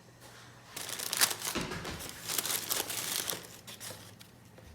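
A bag or packaging being handled, crinkling and rustling in a dense run of crackles from about a second in, fading near the end.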